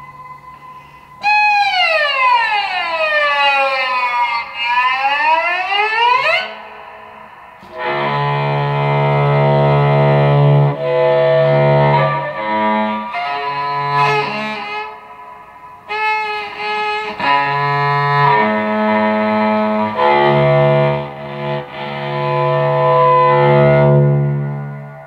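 Electric cello played with the bow. About a second in, one long note slides down and back up over roughly five seconds; after a short gap come sustained bowed notes over a strong low note.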